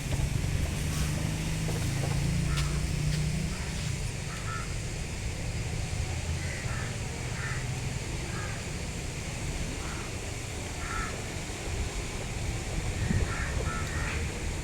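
Birds calling outdoors, short calls repeated every second or two, over a steady low rumble.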